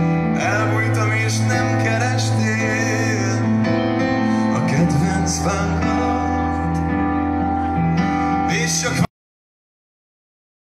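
Live band music with a male singer, a full mix of held notes under a voice. About nine seconds in the audio cuts out suddenly to dead silence, a dropout in the recording.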